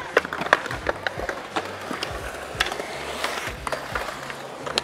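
Stunt scooter wheels rolling over concrete, with a scatter of sharp clacks and knocks as the scooter's deck and wheels hit the ground; music plays underneath.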